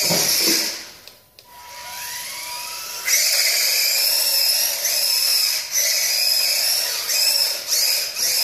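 Tamiya Grasshopper RC buggy's small stock electric motor and gears whining high as it drives. The whine drops away twice in the first second and a half, rises in pitch as the buggy speeds up, then runs steady and loud from about three seconds in.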